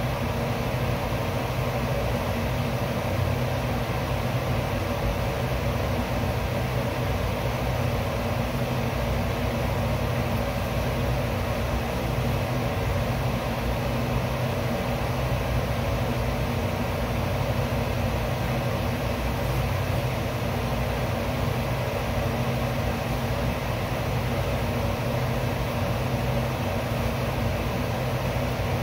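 Steady mechanical hum with a low drone underneath, unchanging throughout.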